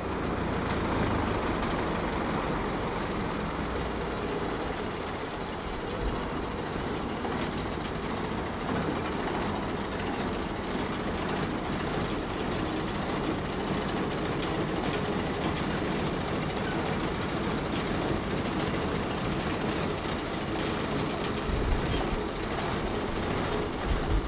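Small diesel brewery shunting locomotive moving a goods van slowly through the yard, its engine running steadily with the wagons rumbling along the track. A couple of low thumps come near the end.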